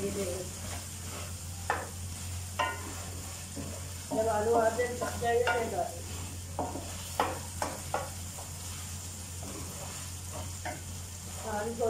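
Wooden spatula stirring potatoes in masala in an aluminium karahi over a light sizzle, with scraping and several sharp knocks of the spatula against the pan. A louder, brief pitched sound comes about four seconds in.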